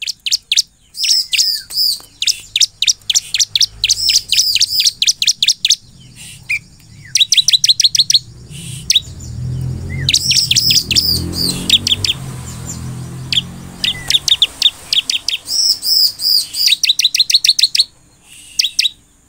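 Bar-winged prinia (ciblek) in full song: fast runs of sharp, high chirps in repeated bursts with short pauses between them. A low rumble sits under the song around the middle.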